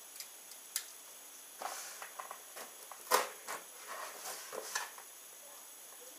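Fingers picking and scratching at packing tape on a cardboard box: scattered scrapes, rustles and taps, with a sharp click about three seconds in.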